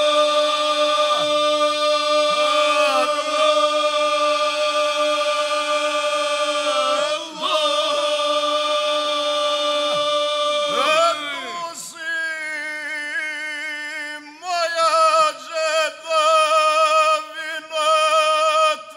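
A male folk singing group singing a native song a cappella in close harmony, holding long notes together with sliding pitch at the ends of phrases. About eleven seconds in the singing drops quieter, and a few seconds later a louder phrase starts with a wavering, ornamented line.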